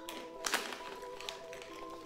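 Background music with steady held notes. About half a second in comes a short, sharp crackle as a plastic snack bag is picked up, followed by a few fainter crinkles.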